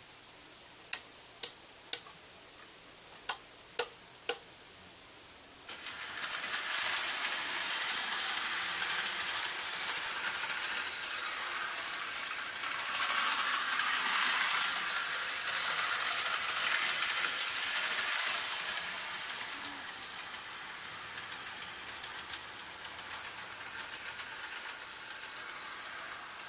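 Six sharp clicks in the first few seconds, then an N gauge model train running along the track with a steady rattling clatter that swells and fades as it travels around the layout and grows quieter after about twenty seconds.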